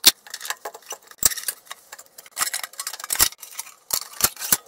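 Irregular sharp clicks and knocks, metal on metal, as the black case of a Bendix Polar Path compass coupler is worked loose and slid off its chassis. The loudest knocks come just after the start and about a second and three seconds in.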